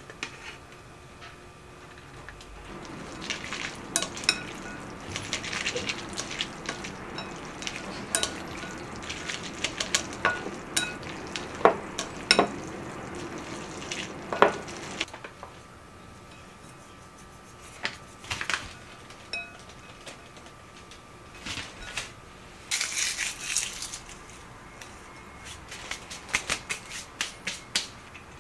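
Chopsticks clinking and scraping against a ceramic ramen bowl while boiled instant noodles are tossed in sauce, with wet stirring noise under the clicks. After a quieter gap there is a short scratchy rustle and then a run of quick light taps as toppings go on.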